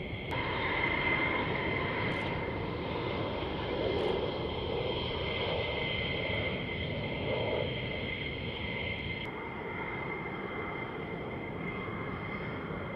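Fighter jet engines running, a steady rush of noise with a high whine held over it. The sound changes abruptly about nine seconds in.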